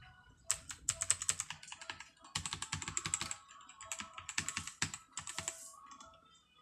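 Keys of a LEAVEN K550 mechanical keyboard being typed on fast, in three quick runs of clicks with short pauses between them.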